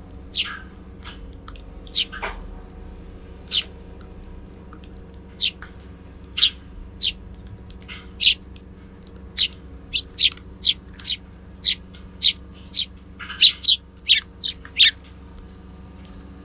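Sparrows chirping: short, sharp chirps, sparse at first and then about two a second in the second half. A steady low hum runs underneath.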